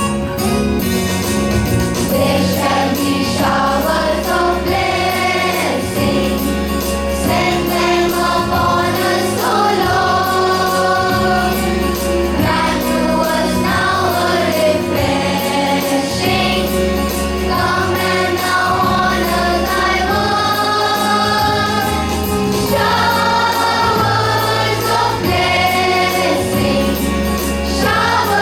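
A group of voices singing a song together over an instrumental accompaniment with a steady bass line.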